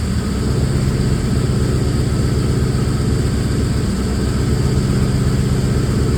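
Car engine idling with a steady low pulsing. It is an engine that idles rough and has exhaust leaks, which the owner suspects come from timing, the cylinder head, the distributor, the cam position sensor or possibly the MAP sensor.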